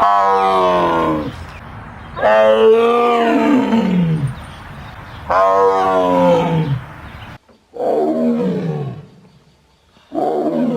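Tiger roaring: five roars, each about one to two seconds long, starting high and falling in pitch, spaced two to three seconds apart. The last two come from a cleaner recording without the steady background hiss.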